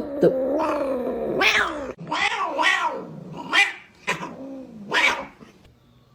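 A domestic cat yowling in a string of wavering calls, first one long drawn-out call, then several shorter ones. This is an annoyed cat's caterwaul.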